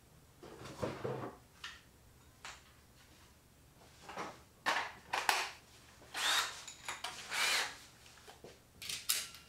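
Tools and hardware being handled at a workshop shelf: scattered clicks, knocks and light rattles, with two longer rattling noises about six and seven and a half seconds in.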